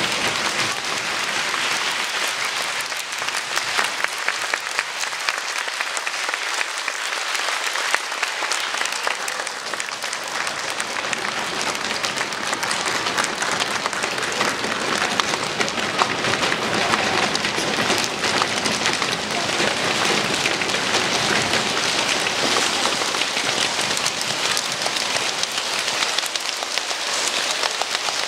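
A children's choir making rain with their hands: a dense, steady patter of many small claps, snaps and slaps that sounds like a downpour.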